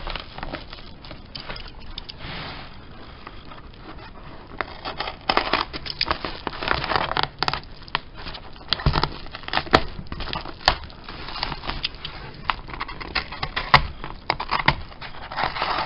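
A cardboard shipping box being opened and unpacked by hand: cardboard and packing material crinkling and rustling, with scattered sharp clicks and knocks, busiest in the second half.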